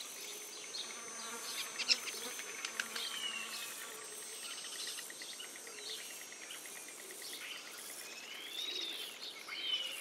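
Buzzing insects with a steady high whine, a rapid ticking for a few seconds in the middle, and a few short rising-and-falling chirps.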